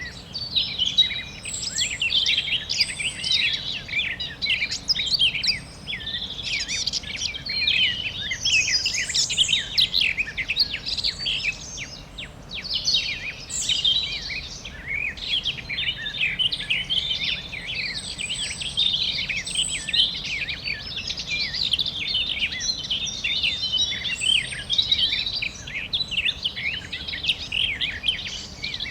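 A chorus of many songbirds chirping and singing at once, dense and continuous, with quick overlapping high chirps and short whistled notes.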